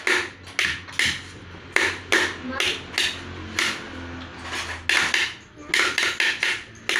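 Hard, sharp percussive strikes, about two a second in an uneven beat, each ringing briefly, beaten out as accompaniment to a child's homemade lion dance.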